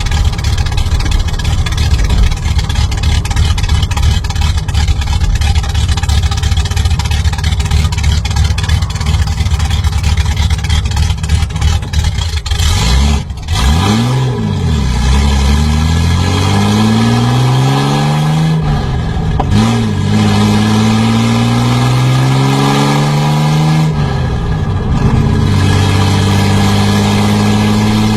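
V8 engine rumbling at idle with a low, pulsing beat, then revving: after about 13 seconds its pitch rises and falls, climbs steadily twice with a drop after each climb, and settles on a steady higher note near the end.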